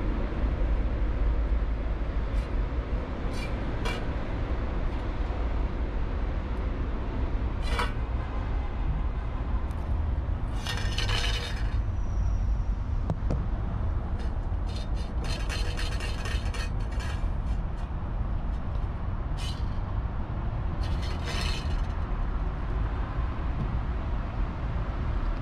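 A cat eating from a stainless-steel dish close up: clusters of wet chewing, licking and clicks against the metal come and go, the longest about ten and fifteen seconds in. A steady low rumble runs underneath.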